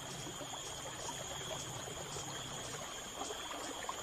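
Flowing river water making a steady rushing noise, with a steady high-pitched drone over it.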